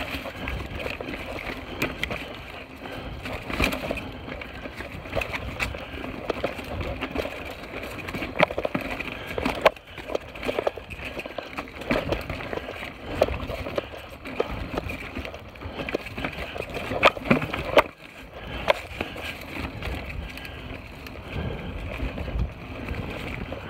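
Mountain bike rolling fast over a rocky dirt trail: a steady rumble of tyres and rattling bike, broken by frequent irregular sharp clacks as it hits rocks and bumps.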